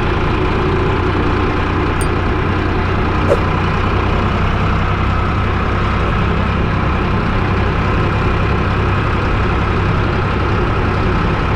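Eicher 555 tractor's diesel engine running steadily under way, an even low drone. A small click about three seconds in.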